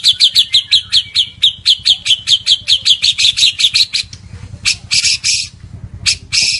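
White-rumped shama (murai batu, Medan type) singing vigorously: a fast run of repeated sharp notes, about five a second, for about four seconds, then a few short harsh notes near the end.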